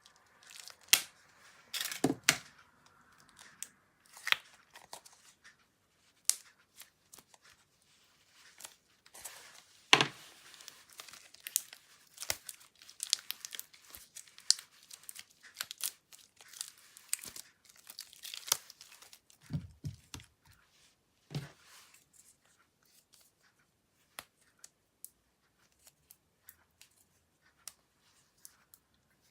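Slime being pressed and mixed by hand, giving an irregular run of sharp little pops and crackles. There are a couple of soft thuds about two-thirds of the way through, and the sounds thin out to a few faint clicks near the end.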